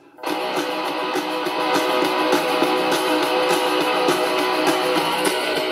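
Rock song with strummed electric guitar played from a vinyl record on a VICTORYLP suitcase turntable. The music comes in a moment after a brief gap at the start, then plays steadily.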